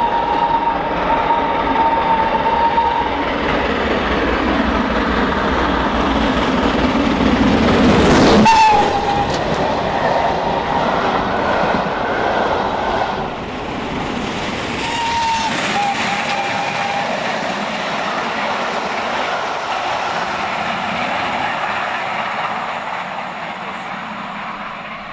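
Steam locomotive hauling coaches passing at speed: a long whistle, then the loudest rush as the engine goes by about eight seconds in with the whistle dropping in pitch, followed by the clatter of the coaches on the rails. A second short whistle about fifteen seconds in also drops in pitch, and the train noise fades near the end.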